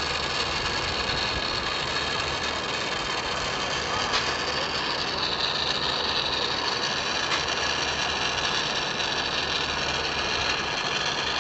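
Oxy-fuel brazing torch flame hissing steadily while a copper joint on the replacement compressor is heated, with a few faint ticks.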